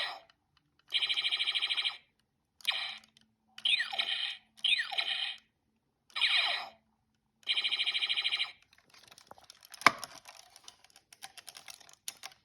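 Electronic sound effects from a 2002 Hasbro deluxe talking Buzz Lightyear toy's small speaker: a string of short bleeps and zaps, several with a quickly falling sweep and two with a rapid pulsing buzz. From about nine seconds in they give way to faint irregular plastic clicks and one sharp snap.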